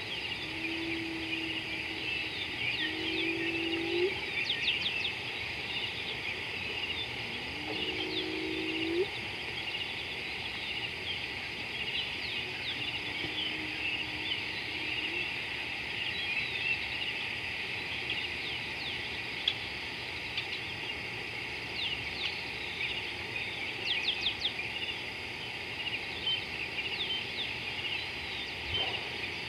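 Evening wildlife chorus: a dense, steady high chirring and chirping from many small animals, with four short, low, level calls about a second long in the first half.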